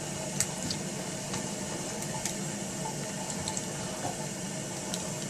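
Runny slime mixture with liquid soap being stirred: steady wet swishing with a few light clicks.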